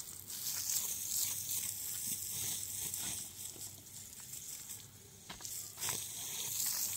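Water spraying from a hose over a concrete-block wall, wetting the blocks: a steady hiss with a light patter, and a couple of faint knocks near the end.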